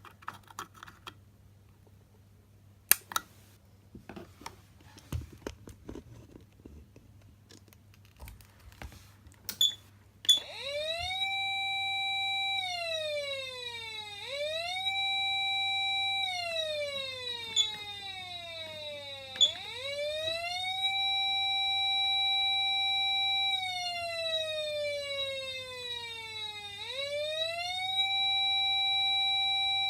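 Scattered clicks and knocks, then about ten seconds in a Patlite SAP500BZ electronic siren starts: a tone that rises quickly, holds steady for two to three seconds, then slides slowly down before rising again, over and over. A faint steady electrical hum runs underneath.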